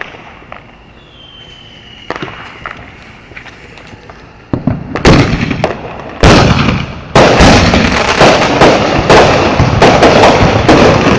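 Consumer fireworks going off. After a few quiet seconds with faint crackles, a loud, rapid barrage of overlapping pops and bangs starts about four and a half seconds in and keeps going.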